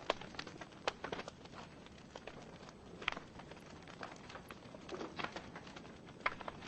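Wood fire burning in a fireplace, logs crackling and popping at irregular intervals over a steady low hiss of the flames.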